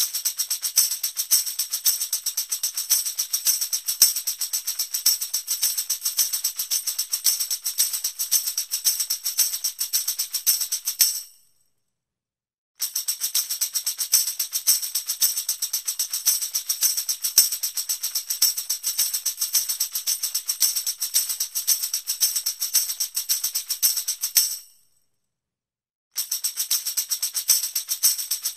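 Tambourine shaken continuously in a fast, even rattle of jingles, in three long takes broken by two short silences, about 11 seconds in and about 25 seconds in.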